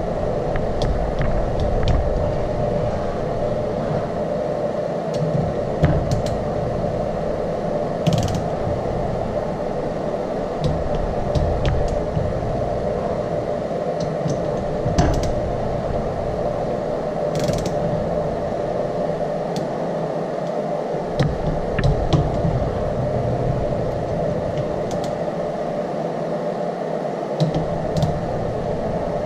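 Click-type torque wrench ratcheting and clicking as the phaser-limiter bolts on a cam phaser are tightened to a 14 ft-lb torque spec. Scattered sharp clicks sound over a steady background hum.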